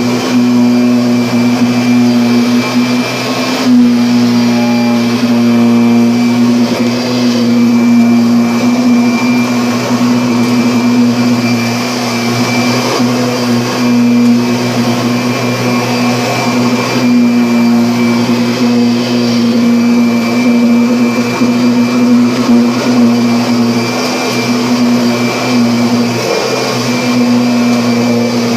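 Vacuum cleaner running steadily, its motor giving a strong constant hum with a fainter high whine, the level dipping slightly now and then as it is worked.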